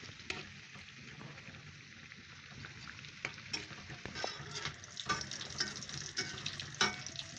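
Potato tikkis shallow-frying in hot ghee in a kadai: a steady sizzle with sharp crackling pops that grow busier about four seconds in.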